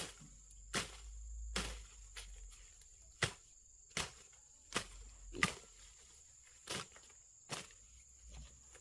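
Steady high-pitched chirring of insects, with sharp knocks repeating roughly once a second.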